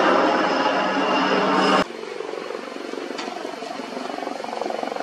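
Military helicopter flying overhead, its rotor and turbine engine noise loud and steady. About two seconds in the sound drops abruptly to a fainter, steady helicopter drone.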